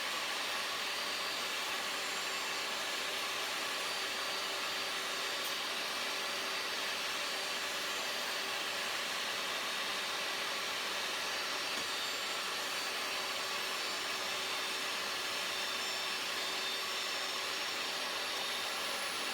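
Table saw running steadily, ripping the second edge of the planks, with a constant whine and rush of noise that holds level throughout.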